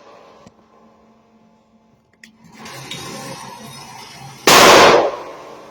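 A single loud gunshot about four and a half seconds in, cracking sharply and then fading over about half a second. A quieter steady hiss comes before it.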